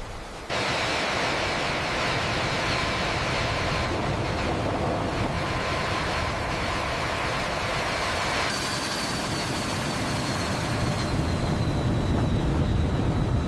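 Turbofan jet engines of a C-5M Galaxy transport aircraft running at high power: a steady roar with a high whine, starting suddenly about half a second in and changing abruptly twice, with a deeper rumble building near the end.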